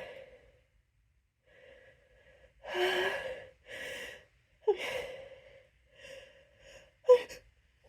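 Gasping, shaky intakes of breath as a person builds up to a sneeze: about five catches of breath starting a couple of seconds in, the last one short and sharp near the end.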